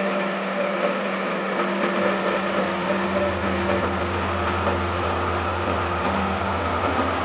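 A heavy machine's engine running steadily at a constant pitch, with a deeper low hum joining about three seconds in.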